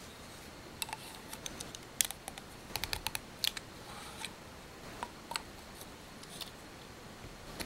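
Small, irregular plastic clicks and taps as a clear plastic solder-dispenser tube and the circuit parts and AA battery inside it are handled and pushed together, with a quick run of clicks about three seconds in.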